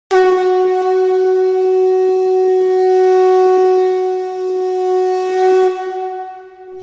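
A blown wind instrument holding one long, steady note for about six seconds; it thins and fades out near the end.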